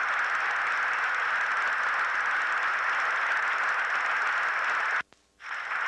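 Steady hiss from an old home-movie soundtrack, with no speech or clear event in it. About five seconds in it cuts out abruptly for half a second, then comes back.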